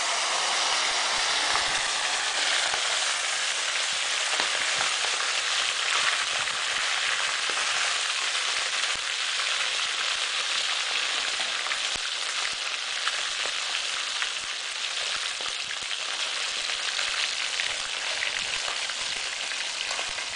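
Trout frying in a pan of hot oil: a steady, dense sizzle and crackle that eases slightly over the stretch.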